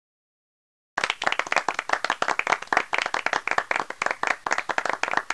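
Audience applauding, starting abruptly about a second in and thinning out near the end.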